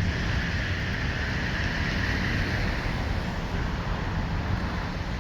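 Steady outdoor background noise: a rushing hiss over a low rumble, swelling a little in the middle.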